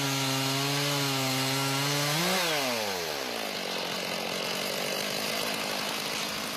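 Chainsaw engine on a chainsaw mill running at a steady speed. A little over two seconds in, its pitch rises briefly, then drops steeply as the saw comes under load. A rough, steady cutting noise follows.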